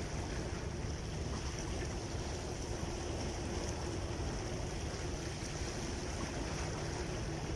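Steady wash of wind and small sea waves against breakwater rocks, with a faint steady hum underneath.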